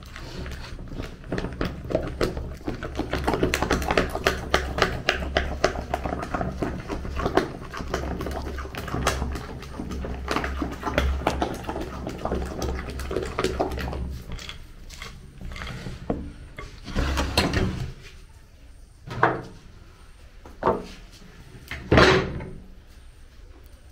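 Kitchen handling sounds: a long run of rapid clicks and knocks over a low rumble, stopping about fourteen seconds in, then four separate knocks.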